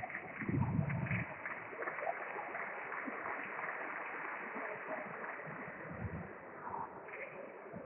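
Sports-hall ambience between table tennis points: a steady hum of the hall with faint voices and a few scattered clicks of ping-pong balls, with a couple of low thuds.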